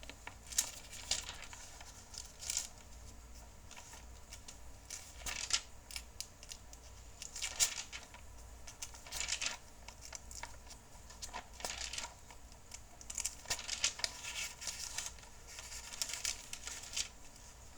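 Pages of a Bible being leafed through, rustling and crinkling in irregular bursts.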